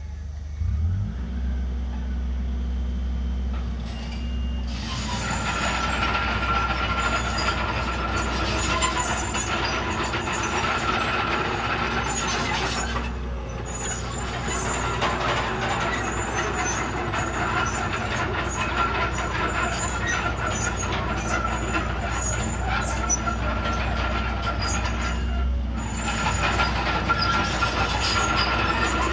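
Crawler bulldozer's diesel engine running steadily, joined about five seconds in by a high squeal and metallic clatter from the running gear as the machine moves. The squeal and clatter drop out briefly twice.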